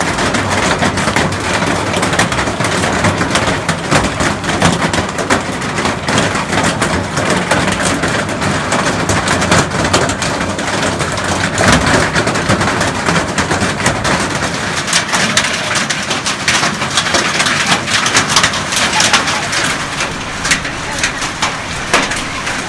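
Hailstones from a violent monsoon storm pelting a gravel yard: a dense, continuous clatter of countless small impacts over a steady rush, growing thicker in the second half.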